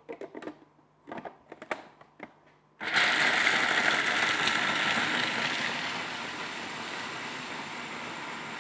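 Several plastic clicks as the food processor's lid and pusher are fitted. About three seconds in, the electric food processor starts with a sudden loud whir, its blade chopping blanched almonds and hazelnuts. The grinding gets quieter and smoother after a few seconds as the nuts break down.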